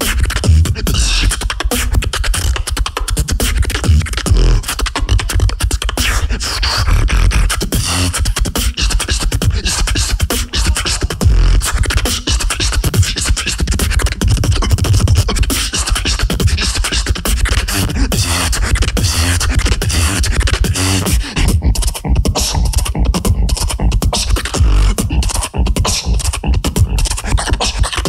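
Solo beatboxer performing a fast, dense vocal-percussion routine: rapid kick, snare and click sounds over heavy bass. About 22 seconds in the sharper high sounds thin out for a few seconds, leaving mostly bass and clicks.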